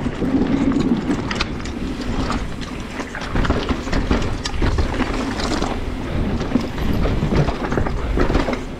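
Mountain bike riding fast down a rough downhill track: tyres rumbling over dirt and rocks, with frequent clicks and rattles from the chain and frame.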